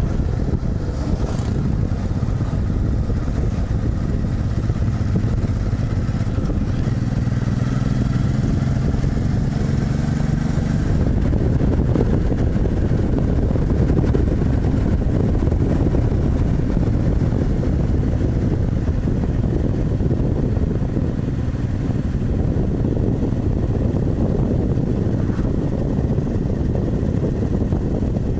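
Honda motorcycle with sidecar cruising on the open road: a steady engine drone mixed with a continuous rush of wind and road noise.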